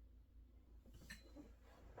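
Near silence with a low steady hum, then a few faint clicks and a soft rustle about a second in: light sounds of someone working at a desk.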